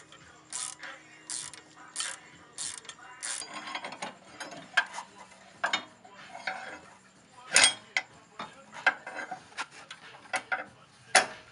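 Socket ratchet clicking as the bolts on a car's suspension arm are tightened after new bushings are fitted. For the first few seconds a burst of clicks comes with each swing, about every 0.7 s. Then come irregular clicks and metal clinks, the loudest about 7.5 s in.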